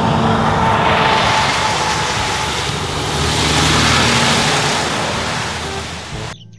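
Articulated truck, a tractor unit hauling a curtain-side trailer, driving past close by. Its engine and tyre noise swell as it approaches, are loudest about four seconds in, then fade, and the sound cuts off abruptly near the end.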